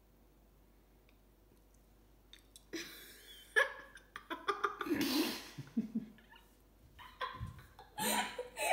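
A girl giggling and laughing in short, breathy bursts, starting a few seconds in after a quiet start.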